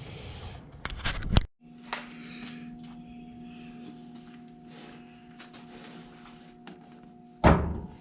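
Objects being handled and shifted about, with a few louder knocks, cut off abruptly about one and a half seconds in. Then a steady low electrical hum with faint clatter, and one loud knock near the end as something is set down.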